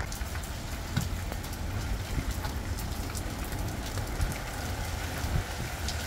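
Heavy rain falling in a strong wind: a steady hiss of rain with scattered drop ticks, over a low, uneven rumble of wind buffeting the microphone.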